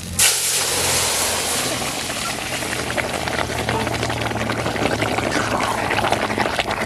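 Curry poured into hot oil with cumin seeds and a bay leaf in an iron karahi, bursting into a loud hiss right at the start: the tempering (phoron) of the finished dish. It carries on as a steady, crackling sizzle while the curry is stirred with a ladle.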